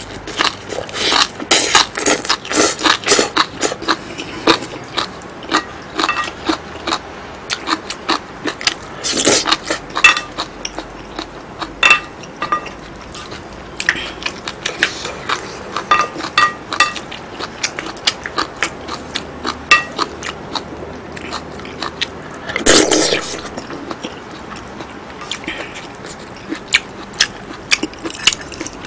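Close-miked eating sounds of abalone curry rice: wet chewing and mouth clicks in quick succession. Through the middle stretch a spoon scrapes and clinks against the plate, giving short ringing tones, and there are two longer noisy bursts, one about nine seconds in and one near twenty-three seconds.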